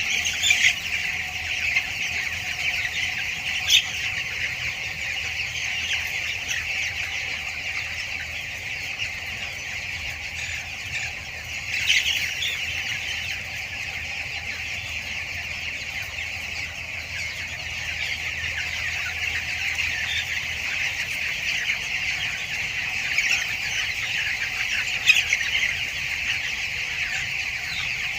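A large flock of two-week-old broiler chickens peeping and chirping continuously, a dense high chatter, with a few louder squawks standing out now and then.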